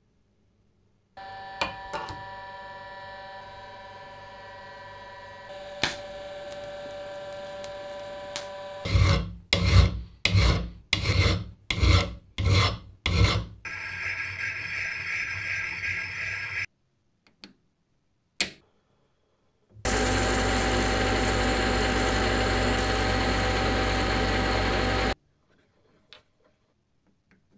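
A small steel flange ring is rubbed flat by hand on abrasive paper laid on a flat plate: about eight loud back-and-forth strokes, then a few seconds of quicker continuous rubbing. Before it comes a steady tonal hum, and afterwards a click and then a loud steady machine run of about five seconds that stops abruptly.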